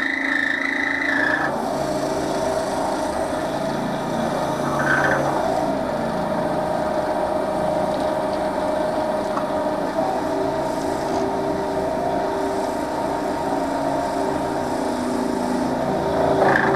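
Wood lathe running steadily while a cloth is held against the spinning wooden cup to rub in raw linseed oil. A higher whine fades out about a second and a half in.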